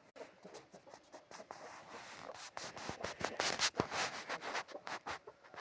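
A run of rapid scratching scrapes that grows louder and is densest a little past the middle, then thins out.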